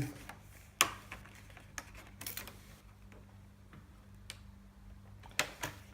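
A few sharp, separate clicks and taps, the loudest about a second in, from a ruler and marker pen handled against a plastic armour piece while rivet hole positions are measured and marked. A faint steady hum runs underneath.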